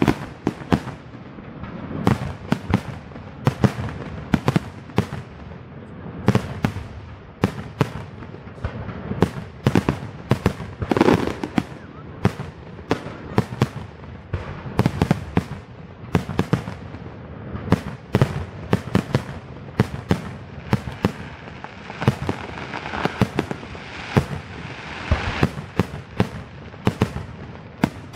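Aerial fireworks display: shells bursting in rapid succession, several sharp bangs a second throughout.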